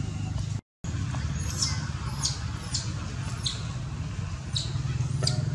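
Short, high-pitched animal squeaks repeating about twice a second over a steady low hum. The sound drops out completely for a moment just under a second in.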